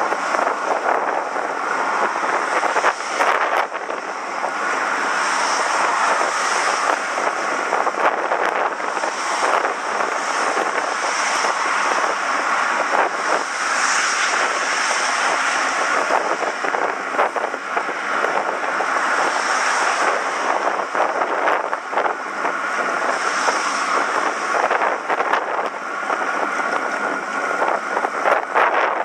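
Wind rushing over the microphone of a moving bicycle: a steady, loud rushing noise that swells and eases slightly, with a few faint clicks.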